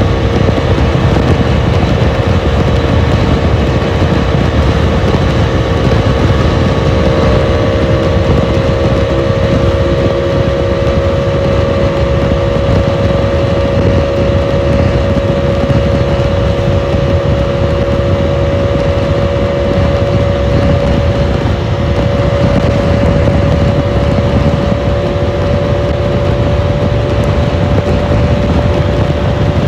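Bajaj Dominar 400's single-cylinder engine running hard at highway speed, its pitch creeping slowly upward as the bike gathers speed, with heavy wind buffeting the microphone.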